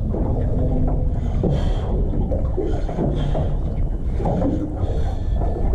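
Steady wind rumble on the microphone, mixed with the noise of the boat and sea.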